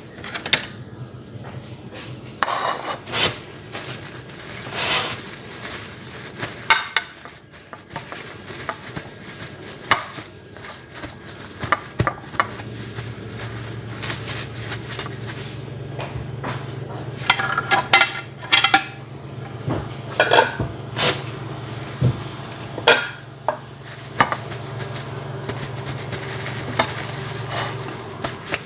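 Table knife and plate clinking and knocking, with paper napkin rustling, as slices of fried egg-dipped bread are handled and blotted on a plate; the knocks come irregularly. A low steady hum comes in about halfway through.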